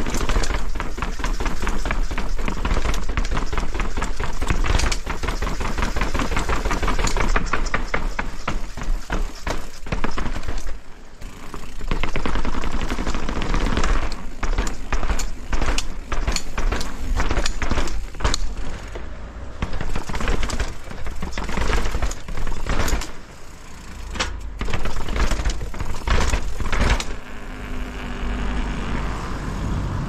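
Specialized Kenevo e-mountain bike rattling over rough ground, with rapid knocks from the tyres and frame over a steady deep rumble. It eases off near the end.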